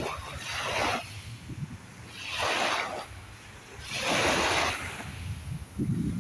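Small sea waves breaking and washing in, three surges of rushing hiss about every second and a half over a steady low rumble.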